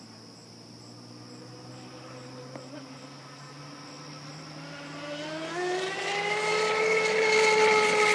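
HPR 135 electric RC speedboat running flat out: its Scorpion 4035 brushless motor on 12S LiPo, spinning a 5-blade stainless 5517 prop, makes a high whine. The whine is faint at first, then from about five seconds in grows loud and rises in pitch as the boat closes in, loudest near the end.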